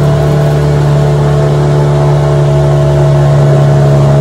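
Jet ski engine running loud and steady at a constant cruising speed.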